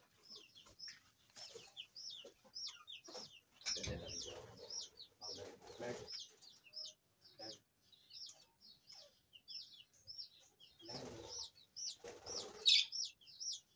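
Budgerigars chirping, a steady string of short high chirps two or three a second. Wings flap in a few brief bursts, about four and five and a half seconds in and again near the end.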